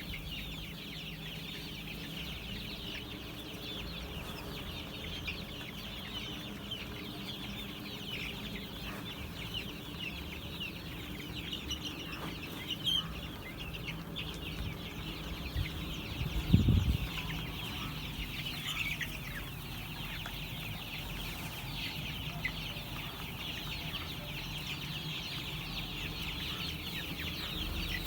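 A flock of month-old chicks peeping continuously in a dense chorus of short high chirps over a faint low hum. A single low thump comes a little past halfway.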